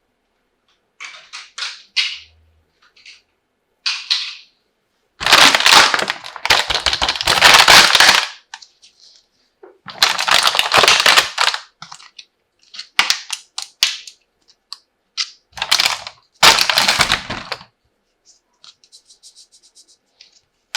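Plastic toy kitchenware and its packaging being handled: scattered clicks and taps, with loud bursts of rustling and rattling, the longest about five to eight seconds in and others about ten and sixteen seconds in.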